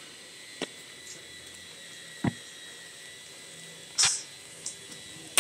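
Cardboard parcel handled on a glass counter: two light knocks, then a short tearing rasp about four seconds in as the packing tape is pulled at, and a sharp click at the very end.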